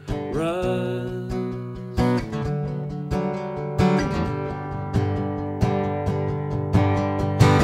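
A man's sung note ends about a second in, then an acoustic guitar plays on alone, its notes and chords picked with clear separate attacks.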